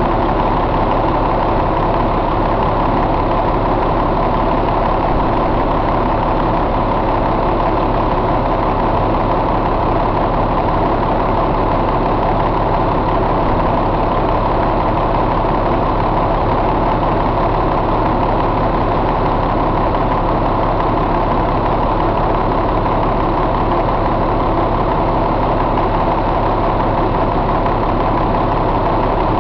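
1998 Caterpillar C12 inline-six diesel engine idling steadily.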